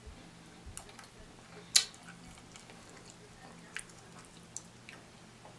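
Close-miked eating sounds: chewing, with scattered wet mouth clicks and smacks, the sharpest about two seconds in, as fries and a chicken wing are eaten.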